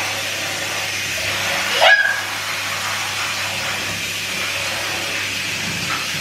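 Handheld shower head spraying water onto shampooed hair, a steady hiss of running water as the shampoo is rinsed out. About two seconds in, a toddler gives a short, sharply rising squeal.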